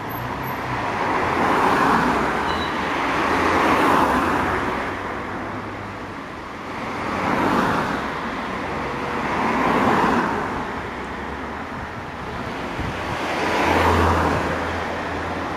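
Cars driving past one after another, engine and tyre noise swelling and fading about five times. The last one passes close, with a deeper engine hum near the end.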